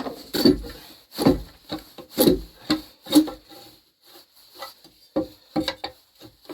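Knocks and rubbing on wood: four solid knocks about a second apart, followed by lighter taps and clicks.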